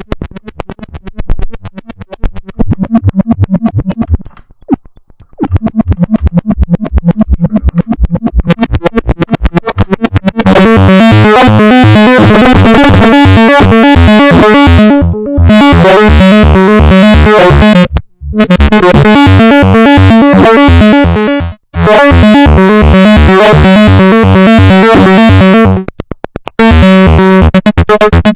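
Make Noise 0-Coast synthesizer playing a fast arpeggiated sequence of repeating notes, driven by an arpeggiator. It starts thin and quiet, opens up bright and loud about ten seconds in, and cuts out briefly a few times.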